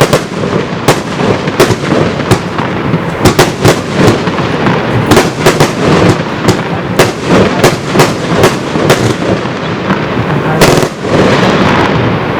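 Consumer firework battery (a 75-shot compound cake with coloured palm effects) firing: a fast, irregular series of sharp launch and burst bangs, a few per second. About ten seconds in comes an especially loud bang, followed by a denser continuous noise as the last shots go off.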